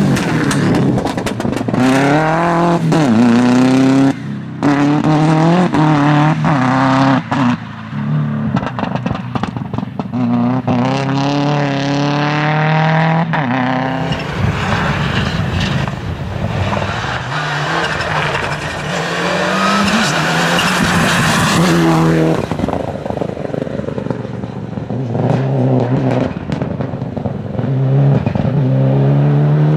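Rally cars driven flat out on a stage, their engines revving hard and climbing in pitch through the gears several times over, with short drops in pitch at the gear changes.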